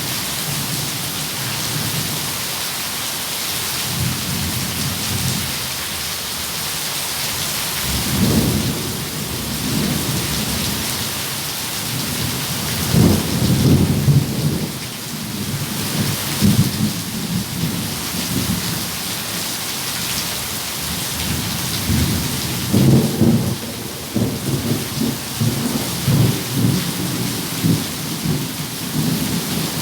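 Steady heavy rain hissing, with rolls of thunder rumbling low several times, loudest about 13 seconds in and again from about 22 seconds on.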